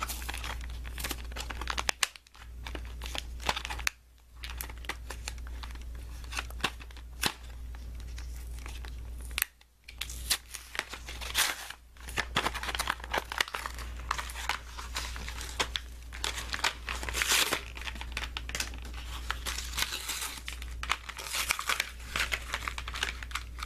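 Clear plastic blister pack crinkling and its cardboard backing tearing as a toy package is opened by hand, in crackly bursts with a few brief pauses.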